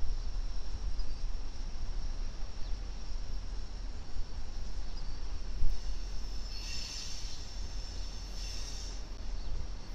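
BNSF diesel freight locomotives approaching with a steady low rumble. From about two-thirds of the way in, the wheels squeal high-pitched in short bursts.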